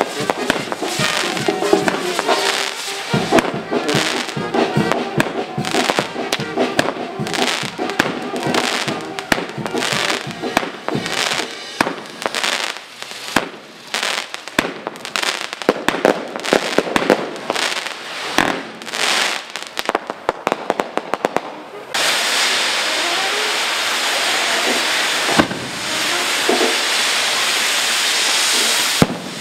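A long, irregular string of sharp firecracker bangs, many in quick succession. About 22 seconds in, it gives way abruptly to a steady rushing noise.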